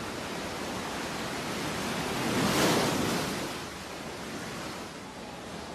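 Sea waves washing, a steady rush of water noise with one surge that swells and fades about halfway through.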